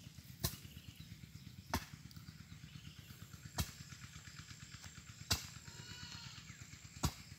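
A hand tool striking wood or ground in slow, regular blows, five sharp strikes about one every one and a half to two seconds: a person chopping or hoeing.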